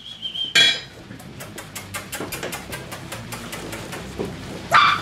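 Rottweiler puppies' claws clicking and scrabbling on a wooden floor, several quick taps a second, as the litter crowds in to be fed. A sharp puppy yelp cuts in about half a second in, and another rising squeal near the end.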